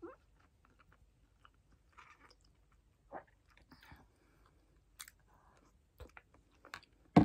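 A person eating stew from a spoon: faint chewing, sipping and mouth sounds with small clicks, and a sharp click near the end.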